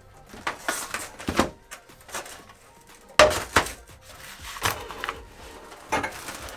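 Irregular sharp clicks and knocks of hand work on a Tesla Model 3 fender as its fender-mounted camera is worked loose from its mount, the loudest knock a little past the midpoint.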